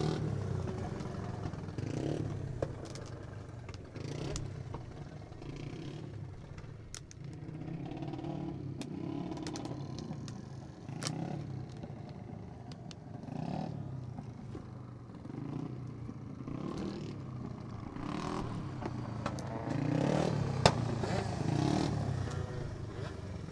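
Small racing go-kart engines running at low pace under a caution, swelling and fading as the karts pass one after another. A sharp crack near the end.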